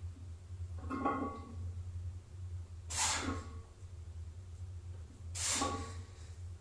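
A bench-pressing lifter breathing forcefully between reps, two hissing breaths about two and a half seconds apart, over a steady low hum. A short pitched sound comes about a second in.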